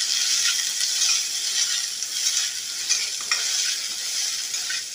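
Sliced onions sizzling in hot mustard oil in a metal kadhai, stirred with a steel spatula that scrapes across the pan now and then. The onions are being fried until they turn red.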